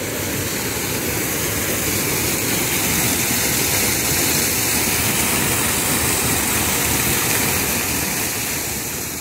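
Water pouring over a stone ledge in a garden waterfall and splashing into a pond below, a steady rushing. It swells a little over the first few seconds and eases off near the end.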